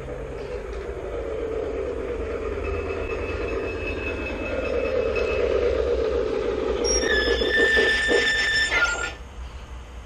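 LGB model of the IVK 145 narrow-gauge steam locomotive running toward the microphone, its mfx sound decoder's running noise mixed with motor and wheel noise on the rails and growing louder; the owner finds this running sound very lacking. About seven seconds in a high squeal joins as the locomotive comes to a stop, and the sound cuts off suddenly about nine seconds in.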